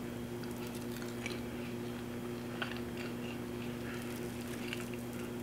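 A person chewing a mouthful of injera with shiro, with faint scattered small mouth clicks. A steady low electrical hum runs underneath.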